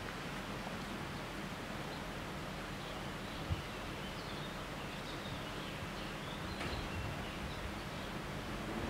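Outdoor ambience: a steady background hiss with faint bird chirps, and one short thump about three and a half seconds in.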